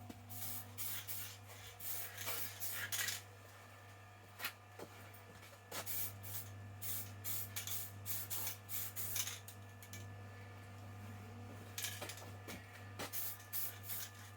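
Aerosol spray paint can sprayed in many short hissing bursts, in three clusters separated by pauses. A steady low hum runs underneath.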